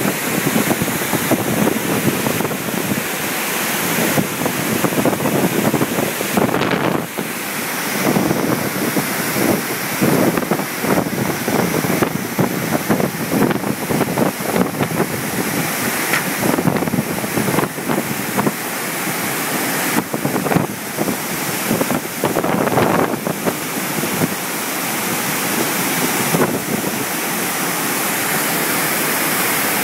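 Strong, gusting typhoon wind buffeting the microphone over rushing river water. The gusts ease near the end, leaving a steadier rush of water.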